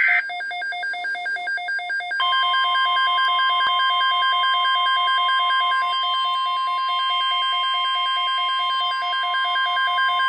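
Emergency weather alert tones: a rapid electronic beeping, about six or seven beeps a second. About two seconds in, the steady 1050 Hz NOAA Weather Radio warning alarm tone comes on and holds beneath the beeping, signalling an incoming tornado watch.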